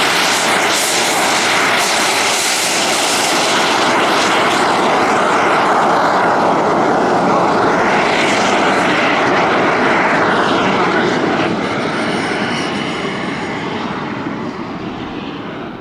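Jet turbine of a turbine-powered Bobby-Car ride-on toy running at speed, a loud, steady jet noise that fades away over the last few seconds as the car moves off.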